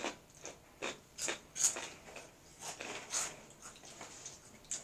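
Crunchy corn snacks, Hot Fries and Flamin' Hot Cheetos, being bitten and chewed: a string of short, sharp crunches at an uneven pace, about one or two a second.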